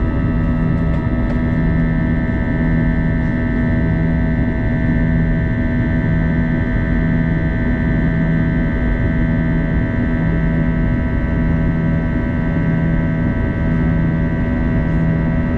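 An Airbus A321-211's CFM56-5B jet engines heard inside the cabin during the climb-out: a steady drone of many held tones over a rush of air noise, with a low hum that pulses about once a second.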